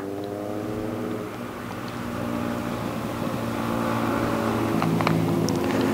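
An engine hums off-screen, one steady pitch, and grows slowly louder.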